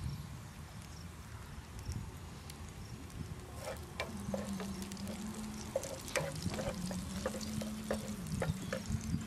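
Wooden spatula scraping and tapping against a nonstick frying pan as chopped garlic is stirred and fries, the taps and scrapes starting about three and a half seconds in. A low steady hum sits underneath through the second half.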